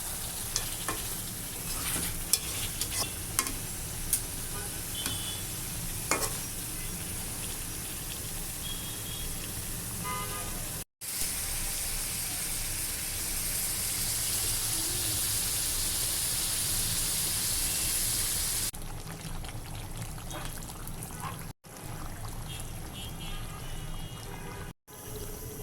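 Duck meat frying and sizzling in a pan, with a spatula clicking and scraping against the pan during the first ten seconds or so. The sound cuts out abruptly a few times; in the middle stretch the sizzle is a louder, brighter hiss.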